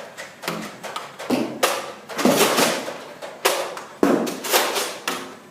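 A string of irregular thumps and knocks, about eight in five seconds, each sudden and fading quickly.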